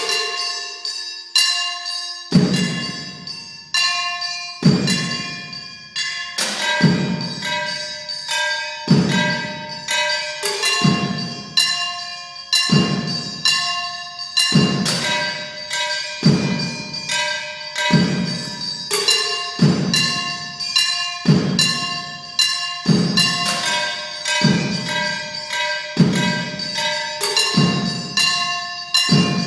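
Solo percussion: struck metal objects ringing with lingering metallic tones, in a driving interlocking rhythm. From about two seconds in, a low drum thud joins and repeats about once a second under the metal strikes.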